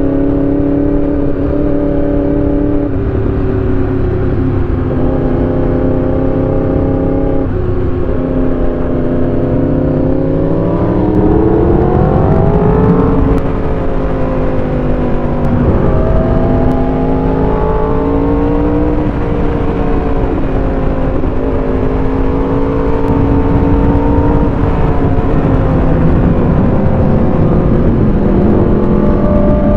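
Motorcycle engine running hard through the gears, its pitch climbing and falling with the throttle and dropping suddenly at several shifts, over a steady low rush.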